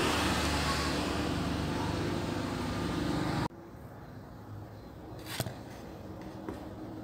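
Steady background noise with a low hum, which cuts off abruptly about three and a half seconds in. After that there is a quieter room tone with a single sharp click a couple of seconds later.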